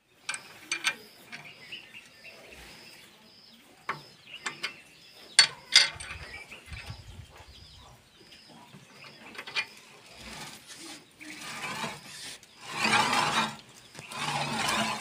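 Metal clinks of a ring spanner working the blade-adjusting nuts on a chaff cutter's cutter wheel, with a faint regular ticking. Near the end come two longer scraping runs as the wheel is turned by hand and the blade rubs past the shear plate, the sign that it is now set to touch properly.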